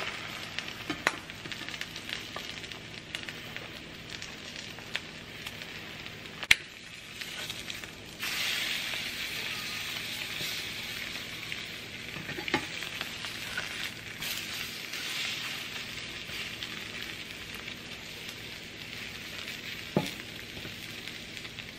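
Eggs frying in a non-stick pan: a steady sizzle that grows louder about eight seconds in, with a few sharp clicks and scrapes of a spatula against the pan as the eggs are turned over, the loudest click about six seconds in.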